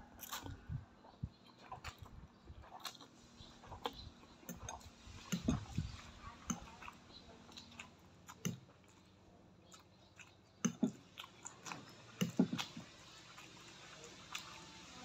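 Close-up eating sounds of a man slurping and chewing instant noodles in broth: wet sucking slurps and mouth noises coming in irregular bursts with pauses, a few of them louder.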